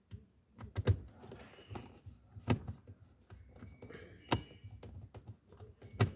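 A handful of sharp plastic knocks and clicks, spread out over several seconds, from car dashboard trim pieces being handled and pressed into place, with faint rustling between them.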